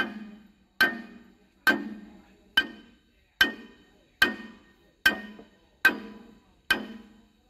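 Sledgehammer striking steel on an excavator's hydraulic rod assembly: nine evenly spaced blows, a little under one a second, each with a short metallic ring.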